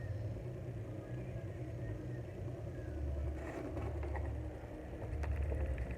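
Mondial electric fan running with a steady, uneven low motor hum and a few light clicks, making an annoying noise from its motor shaft: the sign of a worn, scratched motor bushing.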